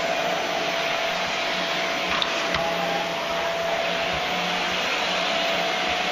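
Vacuum cleaner with a chrome wand running steadily, a constant rushing noise with a high whine, and a light knock about two seconds in.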